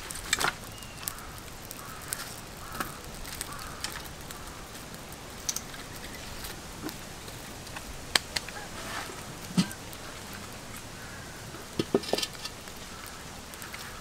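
Wood fire crackling in a clay stove, with scattered sharp snaps and knocks from sticks being handled and pushed into the flames. A short cluster of knocks comes near the end.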